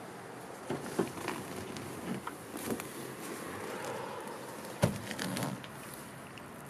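Scattered clicks and knocks of a van's rear bench seat being handled, its metal frame and support bar rattling, with one sharp clunk about five seconds in.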